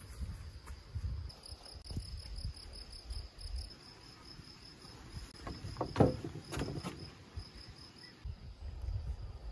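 Insects chirping in a fast, high-pitched pulsing trill over a low rumble on the microphone, with one sharp knock about six seconds in.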